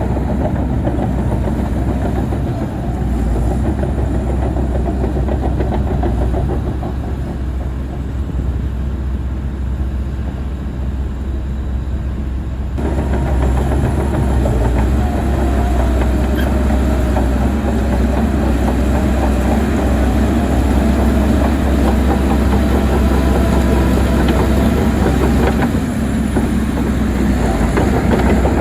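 Tracked earth-moving machinery working: a heavy diesel engine running under load with the clanking rattle of steel tracks. The sound changes abruptly about halfway through, and a wavering whine comes and goes for a few seconds after that.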